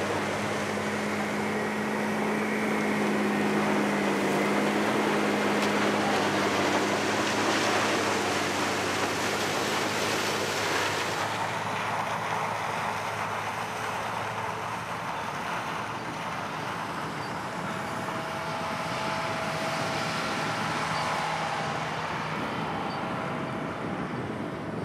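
Sugarcane harvester running steadily: a low engine hum under a loud rushing noise. About halfway through the rushing thins out and the hum changes pitch.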